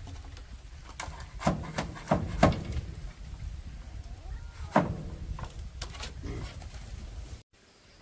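Hollow wooden knocks and clatter of flattened split-bamboo wall panels being handled and pressed into place against a bamboo frame, in irregular strokes.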